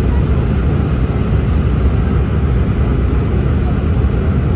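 Steady cabin noise of an Embraer 195-E2 on approach, heard from a seat beside its Pratt & Whitney PW1900G geared turbofan: engine and rushing air blend into an even, mostly low rumble.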